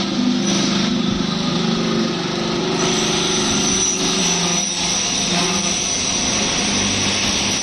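Hydraulic scrap-metal baler running: a steady mechanical hum and whine from its hydraulic pump motor as the press cylinders work.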